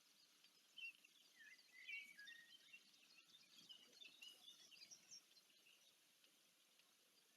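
Faint, high-pitched bird calls: a run of short chirps and quick rising and falling notes from about a second in to about five seconds in, over a faint steady background.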